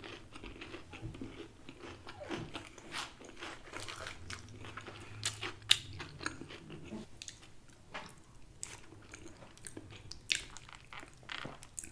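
Close-up mouth sounds of a person biting and chewing food, with irregular crisp crunches scattered through.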